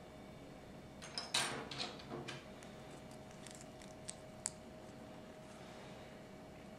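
Small plastic Lego plates clicking and rattling as they are handled and pressed together: a quick cluster of clicks about a second in, then two sharp single clicks around four seconds.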